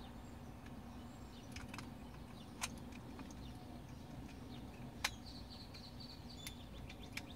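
Scattered faint clicks and taps, two of them sharper and a couple of seconds apart, as the ignition lock cylinder of a 2008 Ford Escape is worked into its housing flange while being aligned.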